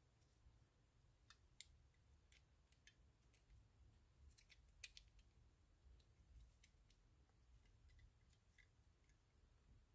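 Near silence with faint, scattered clicks of small metal reel parts being handled as the eccentric jack and its springs are worked into place on a Penn Senator II side plate; one sharper click about five seconds in.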